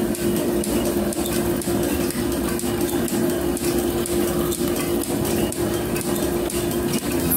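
Metal planer running, its table traversing the clamped steel bar past the cutting tool: a steady hum from the drive with fast, irregular clicking and rattling of the gearing.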